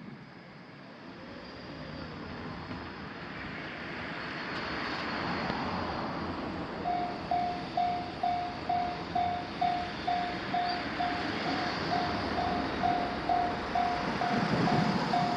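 A Japanese railway level-crossing warning bell starts about seven seconds in: a single electronic ding repeated evenly a little over twice a second, signalling that a train is approaching. Beneath it and before it, a rushing vehicle noise swells and stays up.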